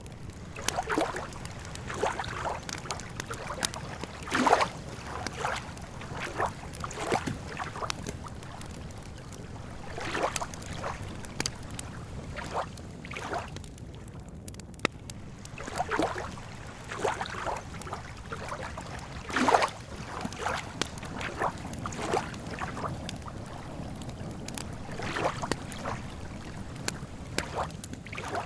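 Small waves lapping and sloshing at the lake's edge in irregular splashes, over a steady low rumble, with the sharp crackle of a campfire.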